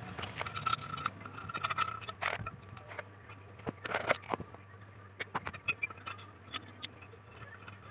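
Irregular scraping and light clicks of small objects being handled on a workbench, densest in the first two seconds and again about four seconds in, over a low steady hum.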